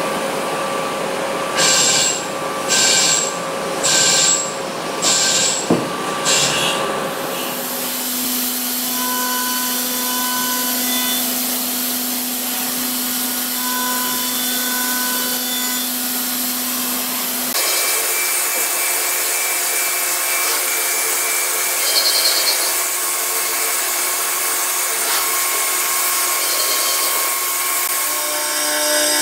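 CNC machining center cutting a cast pump housing. A 14 mm drill at 2800 rpm cuts in repeated bursts about once a second. From about 7 seconds in, a chamfering tool at 6500 rpm runs with a steady hum. From about 17 seconds in, a tool cuts under flood coolant with a steady hiss.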